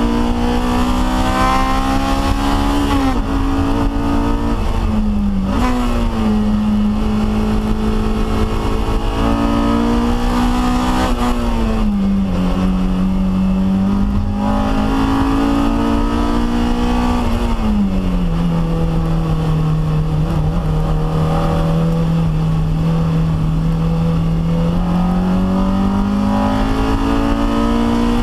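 Honda K20 inline-four in a Toyota MR2 Spyder, heard from inside the cabin while driven hard on track: the engine note climbs under acceleration and drops sharply several times on lifts and downshifts, holds a steady lower pitch for several seconds past the middle, then climbs again near the end.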